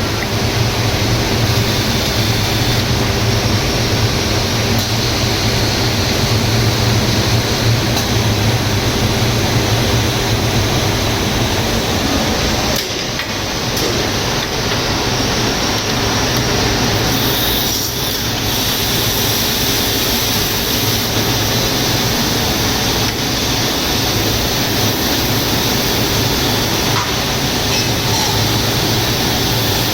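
HOMAG CNC machining centre running steadily with a low hum and a constant rushing noise, as when it cuts table tops. The sound dips briefly twice, about 13 and 18 seconds in.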